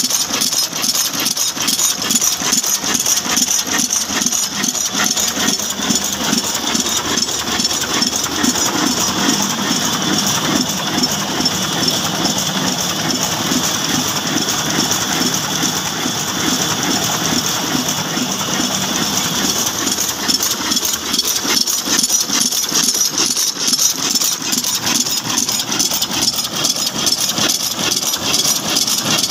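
Old stationary diesel engine with a large flywheel running steadily, a regular repeating beat with mechanical rattle, belt-driving a grinding mill.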